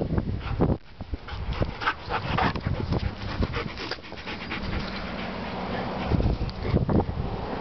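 Siberian husky panting hard right beside the microphone, a quick run of short breaths, winded from running after a ball.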